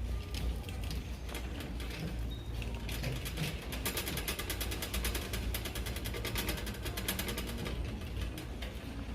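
Rapid, even mechanical clicking rattle, about ten clicks a second, from about three seconds in until near the end, over a steady low rumble.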